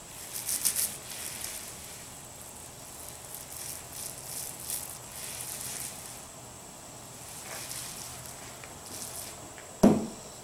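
Paint roller working thick DuraTex texture coating onto a speaker cabinet: a sticky, crackling hiss that swells and fades with the roller strokes. A short thump near the end.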